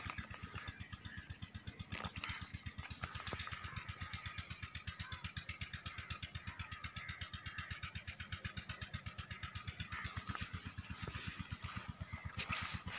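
An engine running steadily at low speed, with an even putting beat of several pulses a second.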